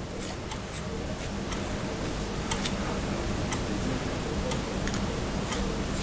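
Small, irregular clicks and light rubbing of a double-ended aluminium scriber's threaded parts as it is unscrewed and screwed back together by hand, roughly one click a second, over a steady low hum.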